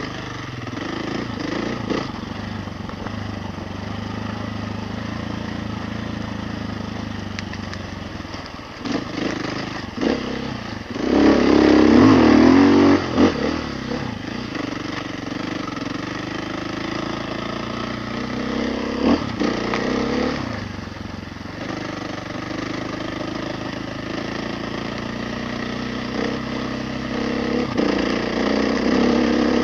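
Off-road motorcycle engine running while the bike is ridden, its pitch rising and falling with the throttle. About eleven seconds in there is a loud burst of revving that lasts a couple of seconds, and a few short knocks come here and there.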